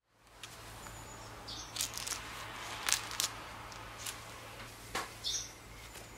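Light clicks and clinks of small metal parts, a bolt, nuts and a coil spring, being handled in gloved hands, over a steady low hum. Two brief high chirps come through, about one and a half seconds in and again near the end.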